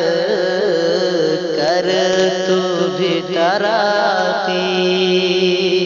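A man singing a naat in Urdu with long, wavering melodic phrases and no clear words, over a steady held drone.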